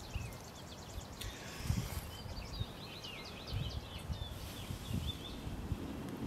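Breath blown in repeated puffs into a smouldering tinder bundle to bring it to flame, with birds chirping in the background.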